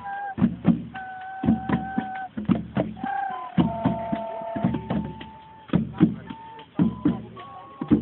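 Hand drums of a drum circle playing a steady rhythm, with a melody of long, steady held notes over them.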